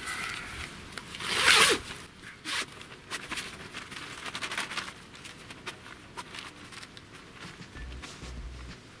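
Zipper on a nylon umbrella-shelter curtain door being opened: one long, loud zip stroke about a second and a half in, followed by scratchy fabric handling and small scrapes as the door panel is lifted.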